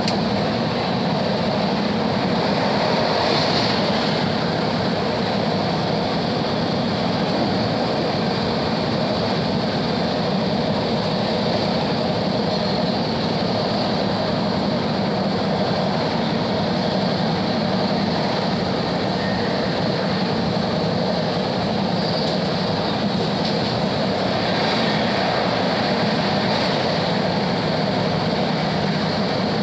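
Passenger train running steadily at speed, its even rumble and wheel noise heard from inside the coach.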